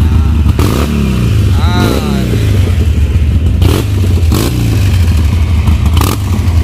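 Harley-Davidson V-twin motorcycle running steadily at idle through its exhaust, with a low, even note.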